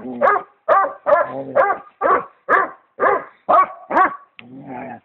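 Basset hound barking over and over, about two barks a second, some rising and falling in pitch, ending in a few softer, lower sounds.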